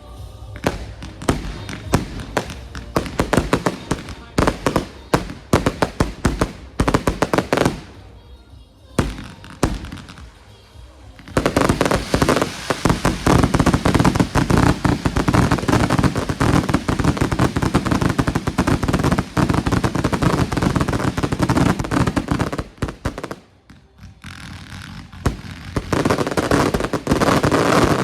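Fireworks going off in quick succession: rapid bangs and crackles for the first several seconds, a short lull, then a dense, continuous barrage from about 11 seconds until about 23 seconds, with music playing underneath.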